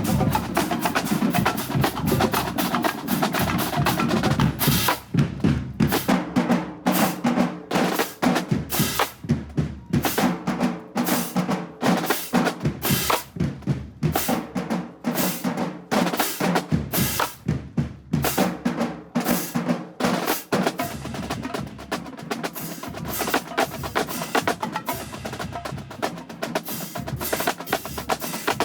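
Marching band drumline playing: fast snare strokes and bass drum hits in a driving, repeating rhythm, with short breaks between the accented strikes.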